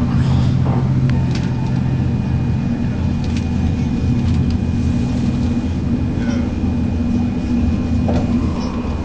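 Inside an ICE 1 high-speed train passenger car running at speed: a steady, loud low rumble of wheels and running gear, with a faint steady high whine and occasional faint ticks.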